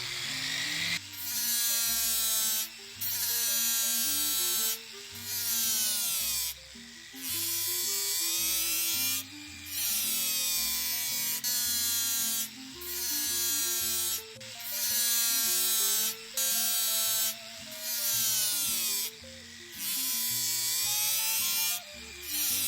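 High-speed rotary power tool working the sole edge in repeated passes, about one every two seconds, its whine dropping in pitch each time it bites into the material and rising again as it eases off. Background music plays underneath.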